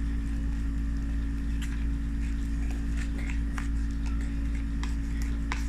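Homemade slime being scraped and pulled up by hand, giving scattered small sticky clicks and squelches, over a steady low hum.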